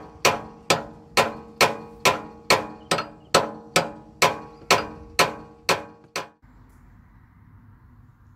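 Hammer blows ringing on the steel tow hitch fitting as it is forced off, about two strikes a second, fourteen in all, stopping after about six seconds.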